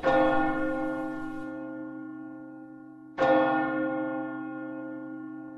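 A large church bell tolling twice, about three seconds apart, each stroke ringing on and slowly fading away.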